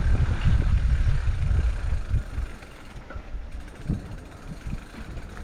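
Low, uneven rumble of wind buffeting the microphone while riding a mountain bike, heavy for the first couple of seconds and then lighter.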